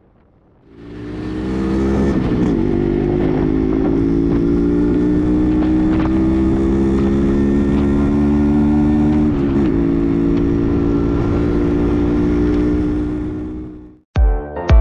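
Yamaha RX100's single-cylinder two-stroke engine, fitted with a Y1 cylinder kit, running under way as the bike is ridden. Its exhaust note climbs slowly in pitch, with two brief dips, about two seconds in and again near ten seconds. The sound fades in shortly after the start and fades out near the end.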